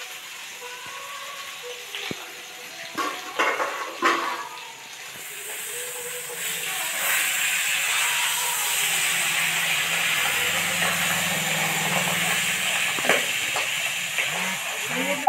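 A few metal clinks of steel on a steel kadhai, then fish pieces frying in hot oil: a steady sizzling hiss that swells up about five seconds in. Spatula strokes scrape against the pan near the end.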